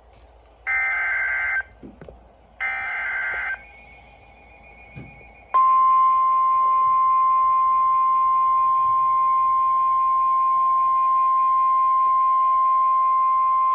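NOAA Weather Radio emergency alert: two short bursts of screeching SAME digital header data, then a steady single-pitched 1050 Hz warning alarm tone from about five and a half seconds in. The tone signals that a severe thunderstorm warning is about to be read.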